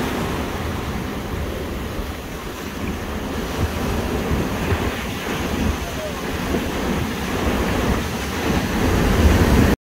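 Ocean surf breaking and washing over rocks and sand at the shoreline; the sound cuts off suddenly near the end.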